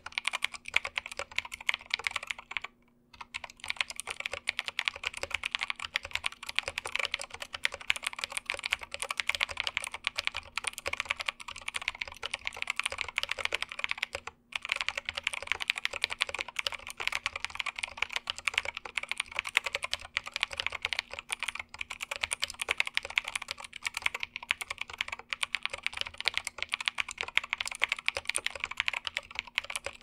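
Typing test on a Keychron K8 tenkeyless mechanical keyboard with Gateron Blue clicky switches that were lubed without opening them: a fast, steady stream of keystrokes. The lube is inconsistent, so the click is dulled on most presses but still comes through on some. The typing stops briefly about three seconds in and again near the middle.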